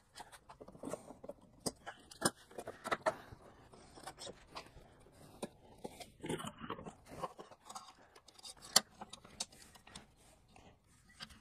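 Scattered light clicks, knocks and scrapes of hands working on a riding mower's seat and plastic body panel, with one sharper click a little past the middle.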